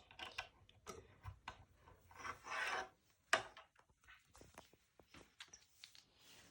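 Faint handling noises from the plastic slime-kit containers: soft rubbing and scraping with scattered light clicks, a longer scrape about two and a half seconds in and a sharper click just after.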